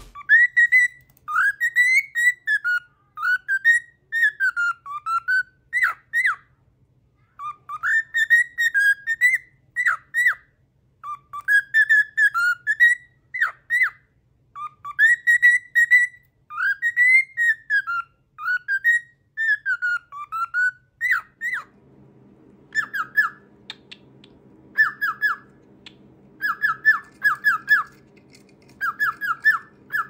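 Male grey cockatiel whistling a song: gliding, rising-and-falling whistled phrases a few seconds long with short pauses between them. About twenty seconds in, it switches to short, quick chirped notes in tight clusters, over a faint low hum.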